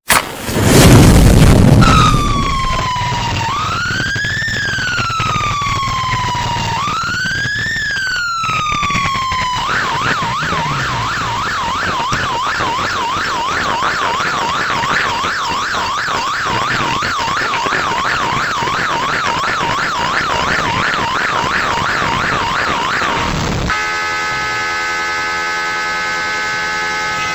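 An electronic vehicle siren sounds two slow rising-and-falling wails, then switches to a fast, steady yelp. Near the end it gives way to a steady horn blast. A loud rushing noise comes just before the siren starts.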